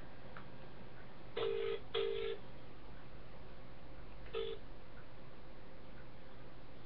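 Mobile phone on speaker playing the British double-ring ringback tone of an outgoing call: one 'burr-burr' double ring, then the next ring breaks off almost as soon as it starts, the sign of the call being answered.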